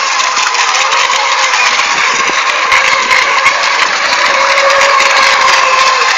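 Electric FSR-E racing model boats running at speed: a steady, loud motor whine over a rushing hiss.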